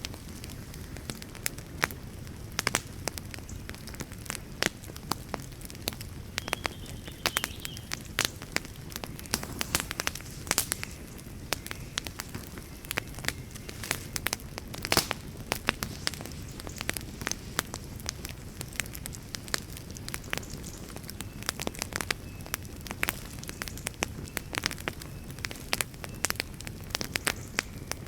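Wood fire crackling: frequent, irregular sharp snaps and pops over a low, steady rumble of burning logs.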